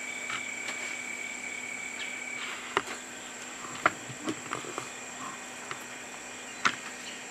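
Insects calling outdoors: a steady high-pitched drone throughout, and a second, lower insect tone that stops about two and a half seconds in. A few sharp clicks or taps sound over it, the loudest about three seconds in, about four seconds in and near the end.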